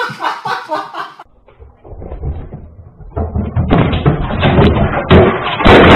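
Loud, continuous banging and rattling starting about three seconds in, harsh and thin as picked up by a security camera's microphone.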